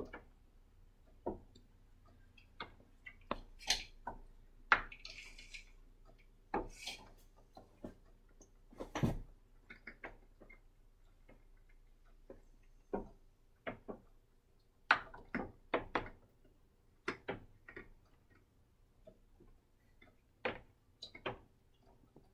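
Raindrops tapping on a glass sunroom roof and windows, heard from inside: separate sharp taps at irregular intervals, sometimes several in a second, over a faint steady background.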